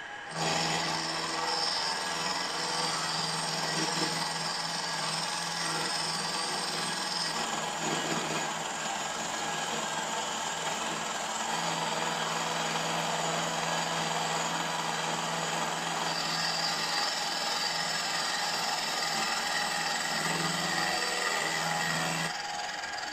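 Milling machine taking a facing cut with a rotating milling cutter across the top of a cast steam chest for a model traction engine: a steady cutting noise over the constant hum of the motor. The cut ends near the end, as the cutter runs off the work and the noise drops.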